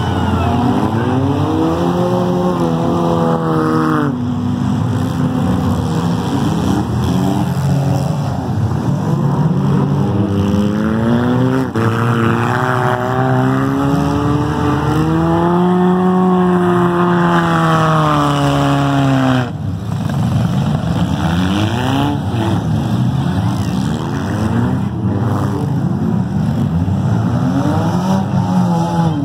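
Demolition derby cars' engines revving hard, several at once, their pitch climbing and falling in long sweeps. One engine is held high for several seconds and drops away suddenly about two-thirds of the way through.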